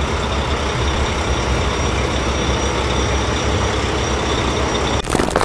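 Steady rumble of a heavy truck engine, a cartoon sound effect, with a brief clatter of mechanical knocks near the end.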